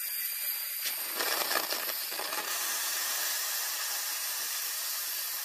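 A homemade paint-can forge firing hot, with flames blowing out of its top: a steady rushing hiss that starts and stops suddenly.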